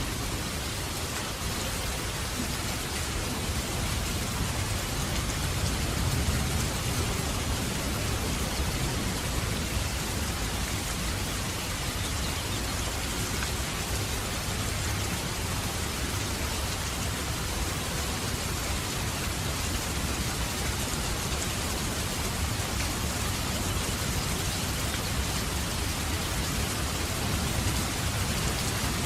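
Steady rain falling, an even hiss, with a low rumble of thunder underneath that swells a little a few seconds in and grows again near the end.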